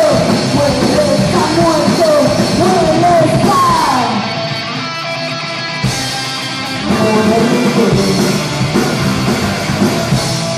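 Live rock band playing: a woman singing over electric guitars, bass and drums. About four seconds in the band drops back to a steady held ringing tone for a couple of seconds, then comes back in full with the singing.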